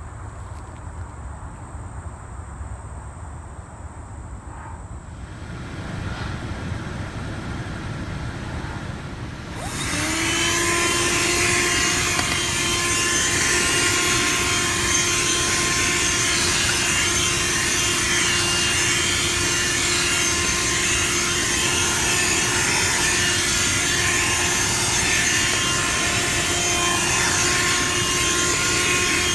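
Black & Decker 12V corded car vacuum switching on about ten seconds in: its motor spins up with a brief rising pitch, then runs at a steady whine over a loud rush of air. Before that there is only quiet background noise.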